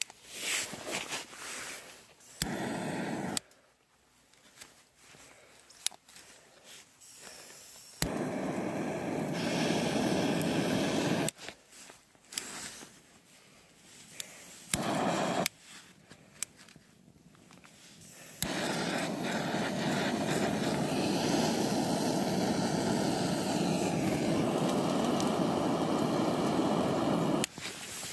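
Fire burning a plastic rain suit: a steady rushing of flame that comes in several stretches, each starting and stopping abruptly, the longest over the last ten seconds, with scattered sharp clicks and crackles between them.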